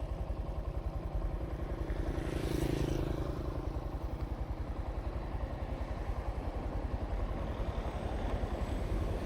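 Honda Monkey 125's single-cylinder four-stroke engine running steadily as the bike is ridden, with a brief swell about two and a half seconds in.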